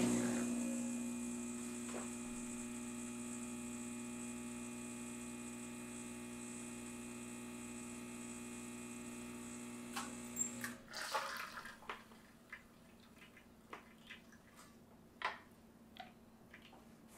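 Rocket Giotto espresso machine's pump running with a steady hum while a shot is pulled, cutting off suddenly about ten seconds in as the shot is stopped. A few light clicks and knocks follow.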